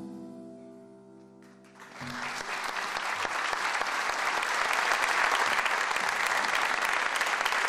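The song's final chord rings out and fades. About two seconds in, a theatre audience breaks into applause, which builds and then holds steady.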